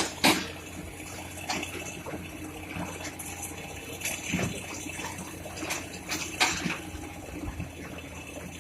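Water rushing and splashing, with several sharp clanks and knocks over a low steady hum, as excavators work in a river.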